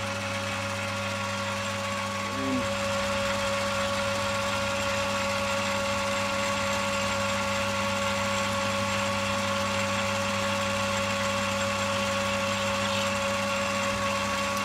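Metal lathe running at a steady speed with an even hum while the cutting tool turns down the outside diameter of a small aluminium spacer. The motor is switched off at the end and the hum dies away.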